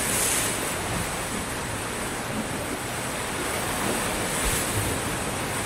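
Small ocean waves breaking and washing up a sandy beach in a steady hiss of surf. One wave breaks loudest right at the start and another swells up about four and a half seconds in.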